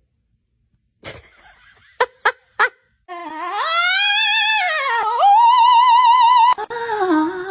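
A small dog yelps three times in quick succession, then lets out a long wavering howl. The howl climbs in pitch, holds high and drops lower near the end.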